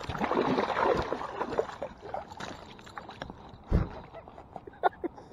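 Water splashing as a hooked bass thrashes at the surface beside a kayak, loudest in the first two seconds. Scattered small splashes and clicks follow, with a single dull knock near the end.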